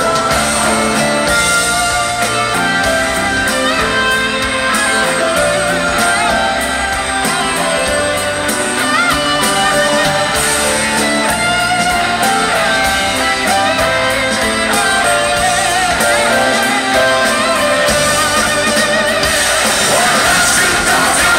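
Live rock band playing, with an electric guitar carrying the melody.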